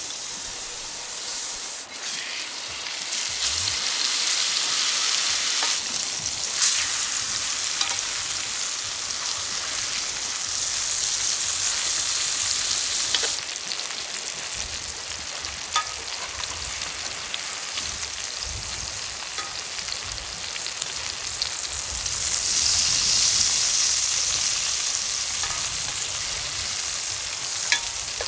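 Butter and steaks sizzling steadily in a hot cast iron skillet on campfire coals, with a few light clicks of metal tongs against the pan.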